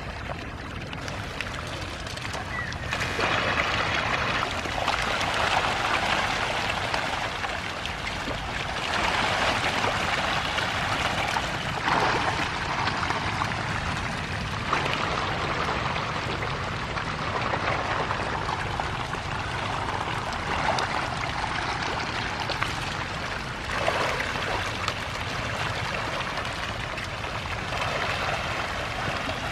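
Continuous splashing and churning of water as a dense mass of hybrid magur catfish feed on floating pellets at the pond surface, swelling and easing in surges every few seconds.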